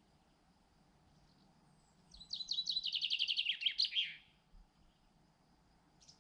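A songbird sings one short song phrase, starting about two seconds in: a fast run of repeated high notes that drops lower into a closing flourish.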